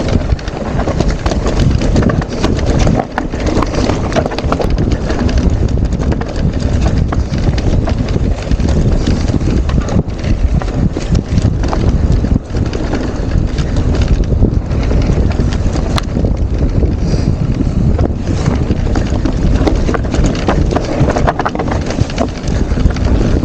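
Mountain bike descending a rocky trail over large loose stones: the tyres and the bike clatter with constant irregular knocks and rattles, over heavy wind buffeting the microphone.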